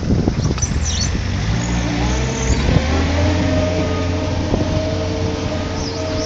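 Thwaites site dumper's diesel engine picking up revs as it pulls away, the pitch climbing for a second or two and then holding steady. Faint bird chirps come in at the start and near the end.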